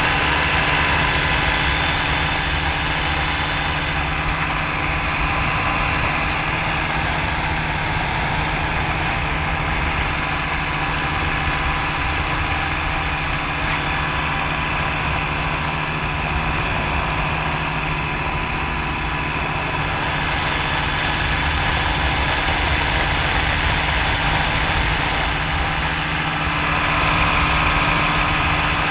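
Engine of an open-cockpit ultralight trike droning steadily in cruising flight, mixed with wind rushing over the microphone.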